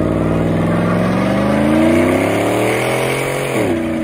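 Pickup truck engine revving steadily higher while the rear tyre spins in a burnout, then the revs drop sharply near the end as the throttle is let off.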